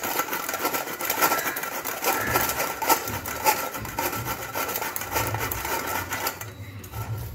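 A carrot grated by hand on a flat stainless-steel grater: rapid, repeated scraping strokes, dying away near the end.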